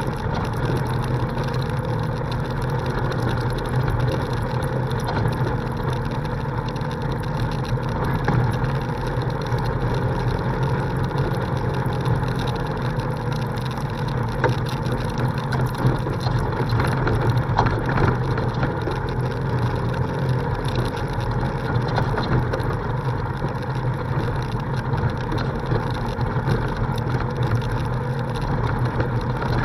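Polaris RZR side-by-side's engine running steadily under way on a dirt road, with scattered knocks and rattles from the rough gravel surface.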